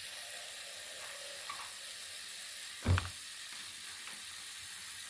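Kitchen tap running a steady stream of water into a plastic bowl of small eggplants soaking in water, a steady splashing hiss. A single soft thump about three seconds in.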